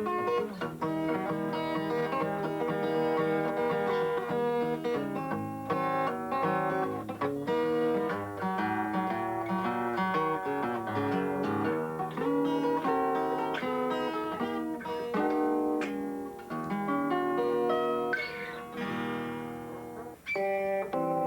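Guitar thumbpicked in the Muhlenberg County style: a steady run of plucked notes, with a short drop in level about twenty seconds in.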